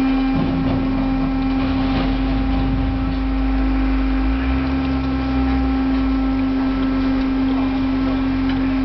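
Dicom waste compactor running with a steady hum, as water squeezed out of the paper pulp gushes back across the hopper's steel floor.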